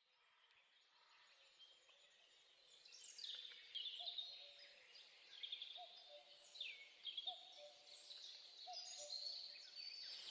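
Faint birdsong in woodland: repeated quick downward-sliding whistles and short lower notes, starting about three seconds in.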